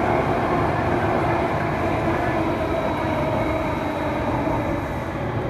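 Singapore MRT Circle Line train running through an underground tunnel, heard from inside the front carriage: a steady rumble of wheels on rail with a faint whine, easing slightly toward the end.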